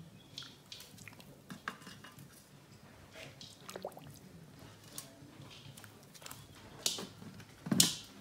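Pot of palm-fruit juice for palm fruit stew at a rolling boil, with many small scattered pops and splutters. A louder thump comes near the end.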